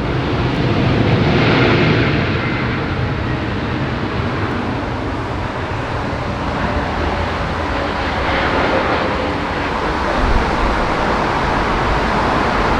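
Jet airliner engine noise, a loud steady rush with a slight swell about one to two seconds in.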